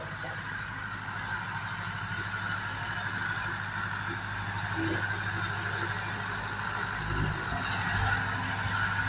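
Diesel engine of a 90-horsepower Same tractor running steadily under load while it drives a rotary tiller through the soil, with a steady higher whine over the low engine hum. A couple of low thumps come about seven and eight seconds in.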